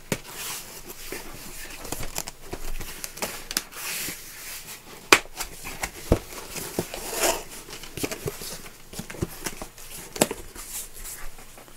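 Packaging being handled during an unboxing: a run of rustling and crinkling with scattered sharp clicks and taps, the sharpest click about five seconds in.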